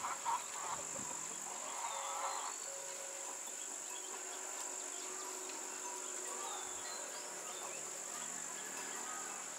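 Steady, high-pitched drone of an insect chorus, such as crickets or cicadas, holding at one pitch without a break.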